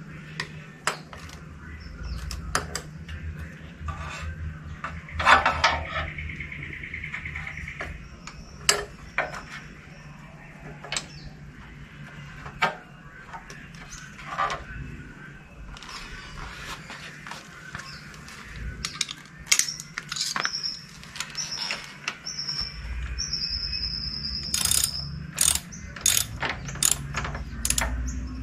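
Socket ratchet wrench clicking in short runs as a bolt is turned, with one long run of rapid clicks a few seconds in and scattered metallic clinks and knocks of tools and fasteners.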